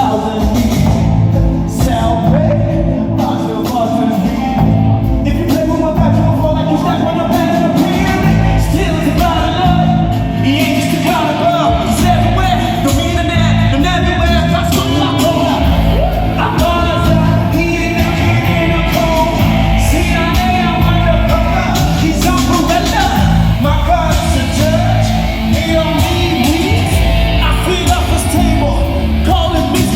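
A live gospel band plays continuously with a singer over the top, amplified through a sound system during a sound check.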